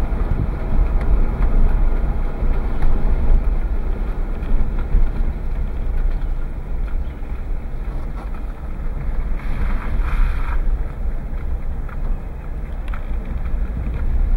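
Steady low rumble of road and engine noise from inside a moving vehicle, with wind noise over the microphone. A brief louder hiss comes about ten seconds in.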